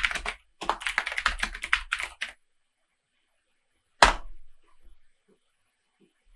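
Computer keyboard typing in quick runs of keystrokes for about the first two seconds. After a pause comes one single, louder keystroke about four seconds in: the Enter key sending the typed command.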